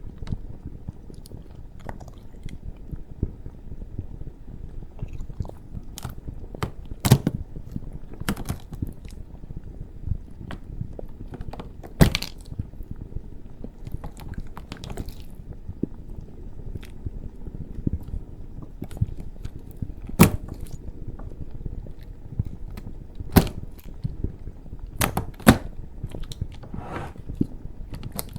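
Crisp cracking and crunching of a wax 'lava keyboard' being pressed and broken, in irregular sharp cracks a few seconds apart with softer crackles between. Underneath runs a steady low lava rumble sound effect.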